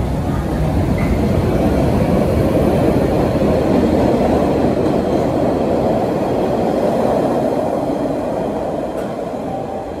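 MBTA Red Line subway train of 01500-series cars pulling out of an underground station, a dense rumble of wheels and motors that swells as the cars pass close by, then fades as the train pulls away into the tunnel.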